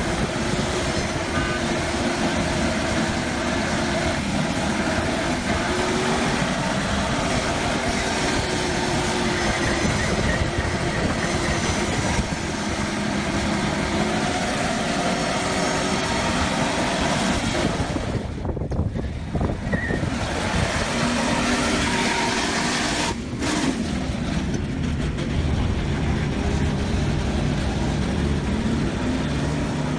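A motor vehicle's engine running steadily, with two brief breaks past the middle.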